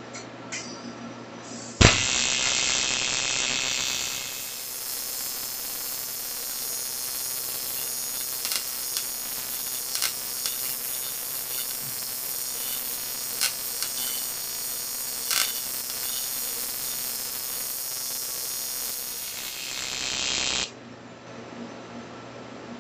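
AC TIG welding arc on an aluminium air-conditioning tube. The arc strikes with a sharp crack about two seconds in, then buzzes steadily for about eighteen seconds with a few small crackles, and cuts off suddenly.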